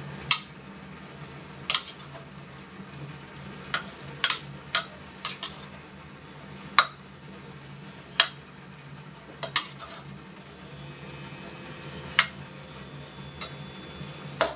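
A metal ladle stirring dal and chopped spinach in an open metal pressure cooker, clinking sharply and irregularly against the pot's sides and rim about a dozen times, over a steady low hum.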